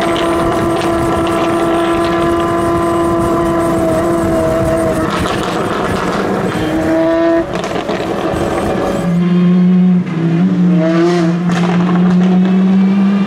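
Apollo Intensa Emozione hypercars' naturally aspirated V12 engines running at high revs, holding a steady note. The note breaks off sharply twice. A lower engine note comes in about nine seconds in and climbs as the car accelerates.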